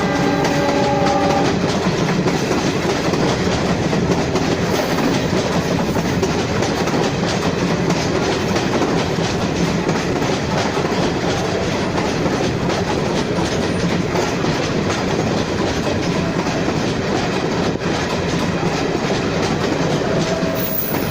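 Express train's multi-note horn sounding and cutting off about a second in, then the train running past at speed: a loud, steady rush of coaches with rapid clickety-clack of wheels over the rail joints.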